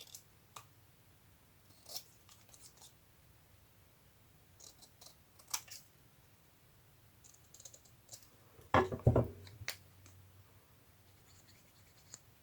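Paper and small craft pieces being handled on a work table: scattered soft clicks and rustles, with a louder knock about nine seconds in.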